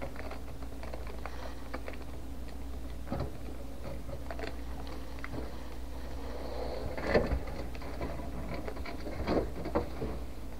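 Rock iguana biting and chewing at its food bowl: scattered small clicks and crunches, with a few louder knocks in the second half, over a steady low hum.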